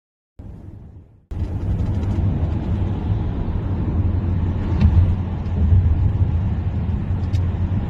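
Steady low road rumble of a car driving, heard from inside the cabin: tyre and engine noise with no clear tones. It comes in faintly and fades at first, then runs at full level from about a second in.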